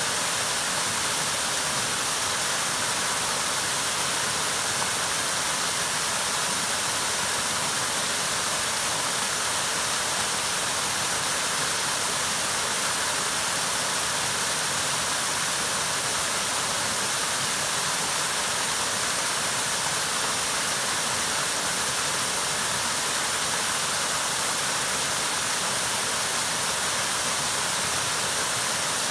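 Small waterfall pouring over rock ledges into a shallow pool: a steady rush of falling water that does not change.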